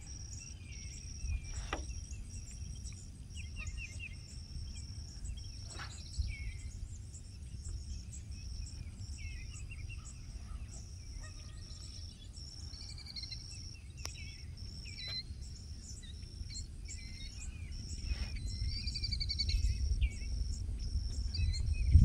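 Birds chirping and calling on and off over a steady chorus of insects, pulsing about twice a second in a high tone. A low rumble underneath grows louder near the end.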